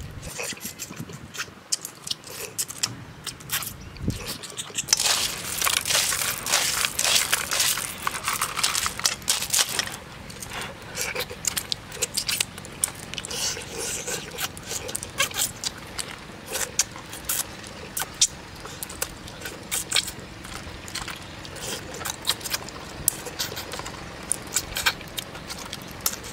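A person eating cooked river snails by hand from a glass bowl: many small clicks of shells against the glass and each other, with sucking and chewing as the snails are eaten, densest from about five to ten seconds in.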